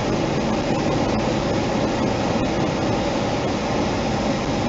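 Steady rumble and hiss of a car driving along the road: engine, tyre and wind noise, unbroken throughout.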